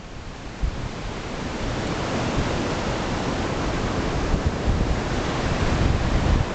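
Ocean surf washing onto a sandy beach, a steady hiss of breaking waves, with wind rumbling on the microphone. The noise swells over the first couple of seconds and then holds steady.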